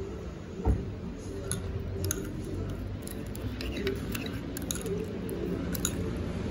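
Metal spoon stirring a thin fish-sauce dip in a ceramic bowl, with liquid swishing and light clinks of the spoon against the bowl's side several times. There is a dull knock about a second in.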